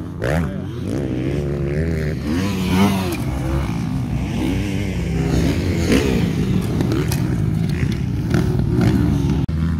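Several motocross dirt bikes racing around a dirt track, their engines revving up and down with pitch rising and falling as the riders accelerate and back off, the sounds of different bikes overlapping.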